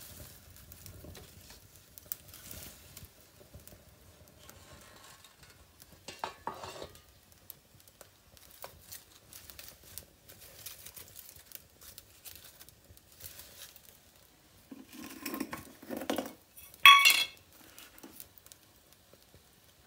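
Brass pot and metal utensils clinking and scraping as they are handled on a clay wood-fired stove, with a loud ringing metal clang near the end.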